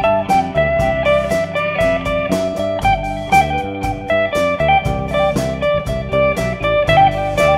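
Live band playing an instrumental passage with no singing. An electric guitar plays a lead line of single notes over drums, and a cymbal keeps a steady beat.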